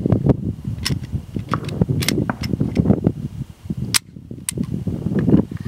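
Wind buffeting the microphone in gusts, with a few sharp clicks or snaps, the loudest about four seconds in.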